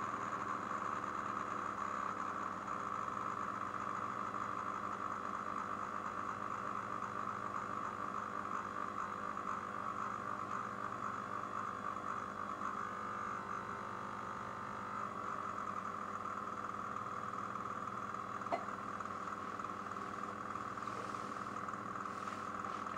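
Small speakers driven by a function generator, vibrating the mirrors of a homemade laser oscilloscope and giving out a steady tone. A faint click comes about eighteen seconds in.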